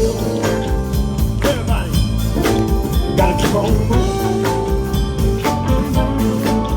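Live blues band playing, with a steady drum beat and bass under a lead line whose notes bend up and down.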